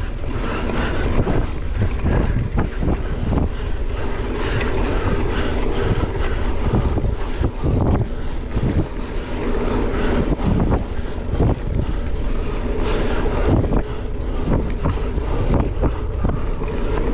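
Wind rushing over the microphone of a bicycle ridden fast on asphalt, with steady tyre noise and frequent short knocks and rattles from the bike.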